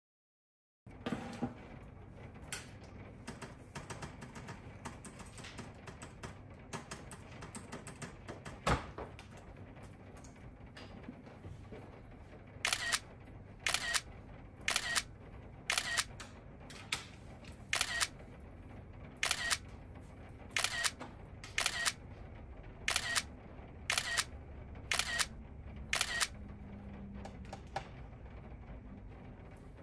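iPhone camera shutter sound firing about once a second, some thirteen shots in a row, as photos are taken in quick succession. Before the shots, faint scattered light clicks.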